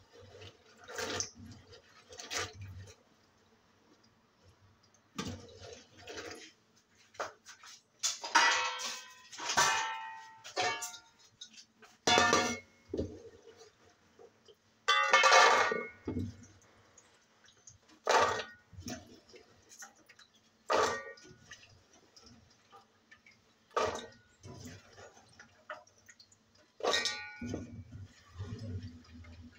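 Dishes and metal pots clattering and clinking in a kitchen sink as they are washed, in separate bursts every second or two, some with a brief metallic ring.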